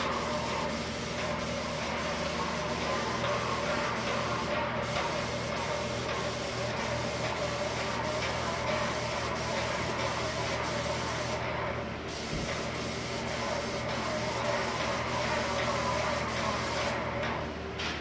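Airless paint sprayer spraying pre-catalyzed lacquer: a steady hiss over a low running hum, with faint regular ticks. The hiss drops out briefly about four seconds in, again about twelve seconds in, and near the end.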